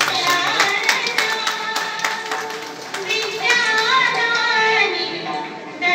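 Song sung by young girls' voices, with scattered hand clapping over the first two seconds.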